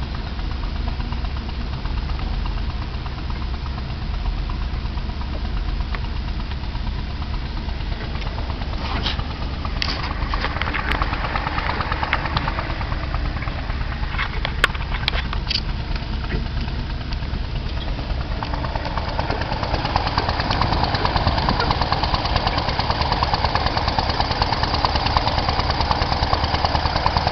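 Semi truck's diesel engine running, heard through its exhaust pipes, with a rod knock: a sign of a bad connecting rod. It gets louder about two-thirds of the way through.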